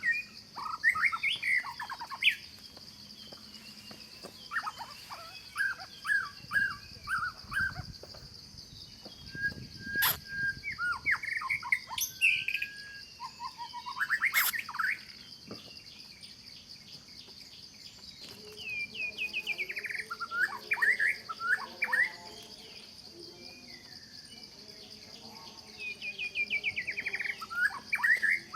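Birds chirping in repeated bouts of short, falling calls over a steady high-pitched insect drone, with a couple of sharp clicks in the middle.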